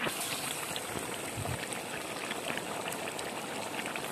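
A pot of chicken curry simmering and bubbling: a steady hiss with many small pops.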